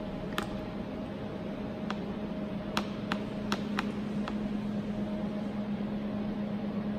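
Steady low machine hum with a fainter higher tone, and a run of about seven sharp clicks between about half a second and four seconds in.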